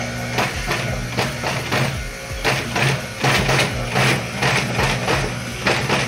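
Industrial sewing machine stitching the side seam of a fabric handbag: needle strokes come in a quick run of short bursts, about two to three a second, over the steady hum of its motor.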